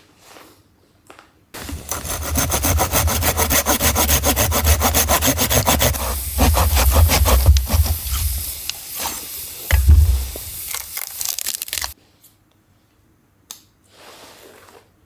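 A hand saw cutting through wood, a long run of rasping strokes that starts about a second and a half in and stops abruptly near the end.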